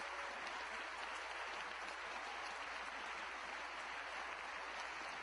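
Large audience applauding, a steady, even clapping with no break.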